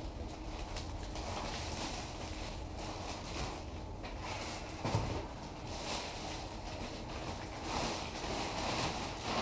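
Rustling and handling noises of packaging being taken off a framed art print, with a soft knock about five seconds in.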